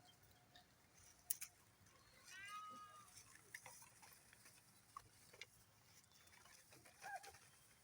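Sheep bleating faintly: one drawn-out bleat about two and a half seconds in and a shorter one near the end, with scattered small clicks between.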